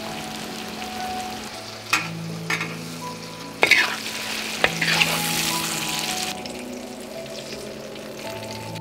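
Sliced papaya stir-frying in a wok: a steady sizzle, with a metal spatula scraping and knocking against the pan several times. The sizzle flares up for about a second after the middle.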